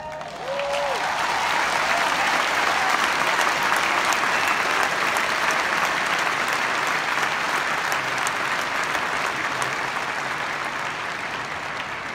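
Large arena concert crowd applauding and cheering, with a few shouted cheers near the start. The applause swells within the first second, holds, then slowly dies away.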